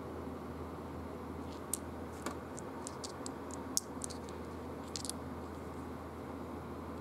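Small round game-piece discs clicking against each other as they are handled and shuffled in the hand: a scattered run of about a dozen light, sharp clicks over a few seconds.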